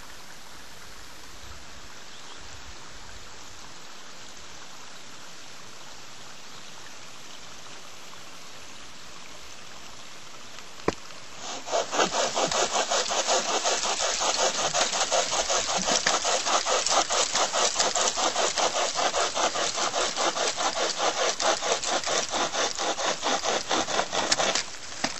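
A pocket chainsaw, a hand-pulled chain saw blade, cuts through a dead branch in fast, even back-and-forth strokes. It starts about halfway in after a steady faint hiss and a single click, and stops shortly before the end.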